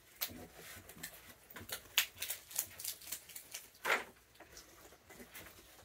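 Raccoons eating peanut treats: a run of irregular small crunches and clicks, with a louder one about four seconds in.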